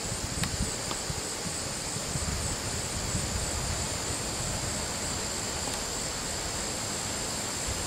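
Wind blowing through the trees and rustling leaves, buffeting the microphone with uneven low rumbles over a steady high hiss.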